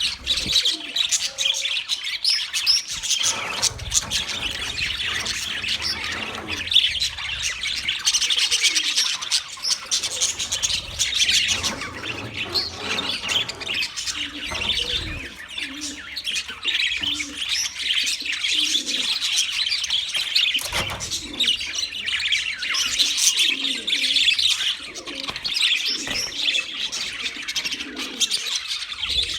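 Budgerigars chirping and chattering continuously, many short high calls overlapping, with some lower notes mixed in.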